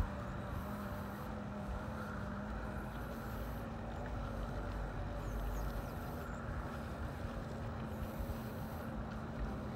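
Electric bike motor under power, a steady humming whine, over a low wind rumble on the microphone from riding along.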